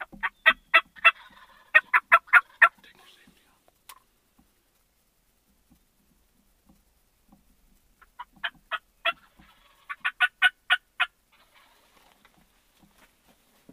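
Turkey yelping: two runs of loud, evenly spaced yelps, about four notes a second, one at the start and another about eight seconds in.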